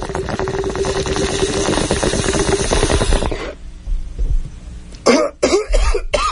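A bong hit: water bubbling fast and rattly through a bong with a steady low note under it. It stops about three and a half seconds in, and after a pause harsh coughing starts about five seconds in.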